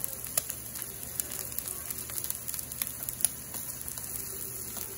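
Thick ribeye steak frying in melted butter on a hot electric griddle: a steady sizzling hiss with many small scattered pops and crackles.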